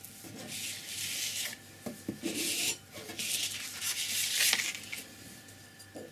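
A sheet of heavy painting paper being slid and turned on a tabletop: three rustling, scraping swipes of paper over the surface, the last the loudest.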